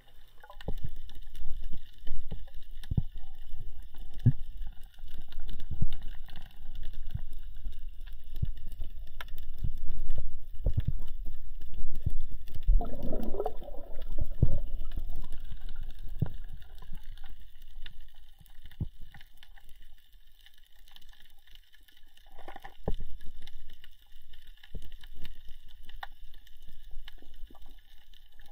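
Underwater sound picked up by an action camera during a freedive: a steady low rumble of water against the housing with scattered dull knocks, and a louder rush of water noise about thirteen seconds in that lasts around two seconds.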